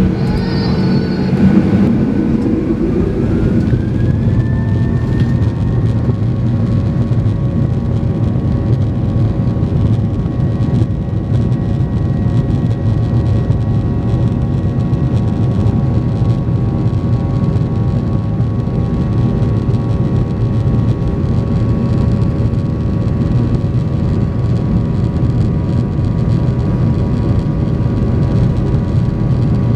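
Boeing 737-800's CFM56-7B turbofan engines spooling up to takeoff thrust, heard from the cabin. A whine rises in pitch over the first few seconds, then holds steady over a loud, even rumble.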